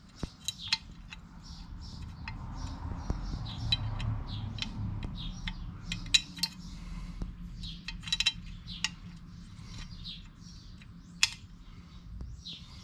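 Light metallic clicks and clinks, irregular and scattered throughout, as steel drum-brake hardware is handled and fitted onto a brake shoe by hand. Birds chirp repeatedly in the background over a steady low rumble.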